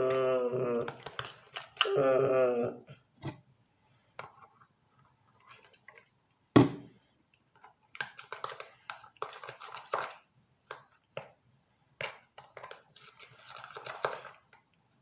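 A short sustained vocal sound, then scattered clicks, one sharp knock, and stretches of crackly, squishy handling noise as slime is squeezed and worked by hand.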